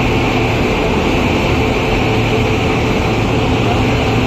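WAP-7 electric locomotive standing at the platform with its cooling blowers running: a loud, steady whirring hum.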